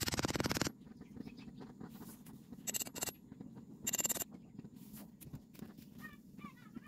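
Casting sand grating and scraping as a pattern is pulled out of the sand mould: a loud grainy burst at the start, then two shorter grainy bursts in the middle. Near the end, faint crackling as molten metal is poured into the sand mould.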